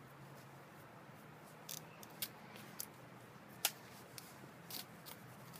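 A few faint, scattered clicks and rustles from a hooded jacket being handled and pulled open, over a low steady hum.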